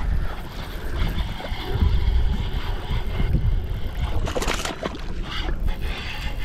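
Hooked largemouth bass thrashing and splashing at the surface beside a kayak, with the splashes loudest about four seconds in, over a steady low wind rumble on the microphone and water slapping at the hull.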